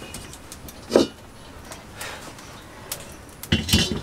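Sharp knocks around a clay wood-fired stove: one loud knock about a second in, then a cluster of heavier knocks near the end as an iron wok is set down on the stove.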